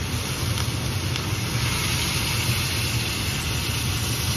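Hot water poured in a steady stream from an electric kettle into a wok of simmering braised pork ribs, an even splashing hiss, over a steady low hum.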